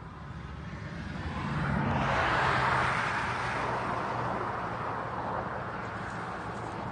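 A vehicle passing close by, its tyre and engine noise swelling over about two seconds and then slowly fading away.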